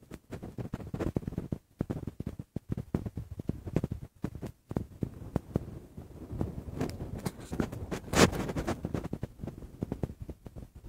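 Gusty wind buffeting a phone microphone: a rough low noise that swells and drops out unevenly, loudest in a gust about eight seconds in.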